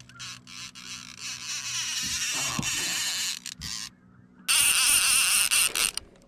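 Baitcasting reel being cranked while fighting a hooked lake trout: a fainter whirring hiss at first, then, after a short lull, loud and close to the reel about halfway through.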